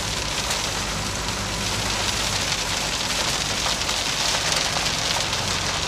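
Inside a Škoda Fabia RS TDI rally car: the diesel engine runs steadily under a constant hiss of tyre and road noise.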